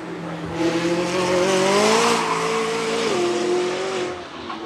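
McLaren 600LT's twin-turbo V8 accelerating hard through a corner. The engine note rises for about two seconds, drops with an upshift about three seconds in, then fades as the car pulls away.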